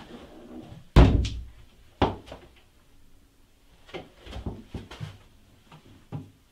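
A loud bang about a second in, a second sharp knock a second later, then a run of lighter knocks and clatters.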